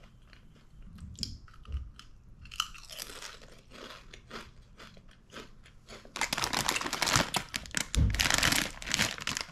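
Crunching and chewing a salt-and-vinegar potato chip with soft, scattered crunches. From about six seconds in, a plastic snack packet crinkles loudly as it is handled.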